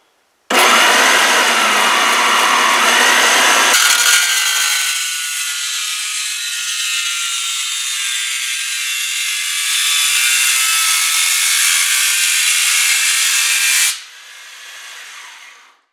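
Woodworking bandsaw converted for metal, with a bimetal blade, cutting through thin sheet metal. It makes a loud, high rasping screech with ringing tones that starts abruptly about half a second in and thins out after about four seconds. The screech stops suddenly near the end, leaving a quieter sound for the last two seconds.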